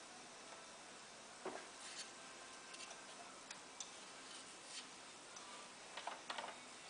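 Faint, scattered metallic clicks and ticks as a nut and lock washer are spun by hand onto the cooling-fan shaft of a 2000 Ski-Doo MXZ 440 snowmobile, over low steady hiss. The first click comes about a second and a half in, and a few fall close together near the end.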